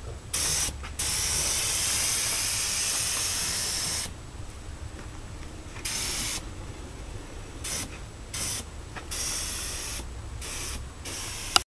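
Gravity-feed air spray gun spraying primer, hissing in on-off bursts as the trigger is pulled and released: one long burst from about one to four seconds in, then several shorter ones.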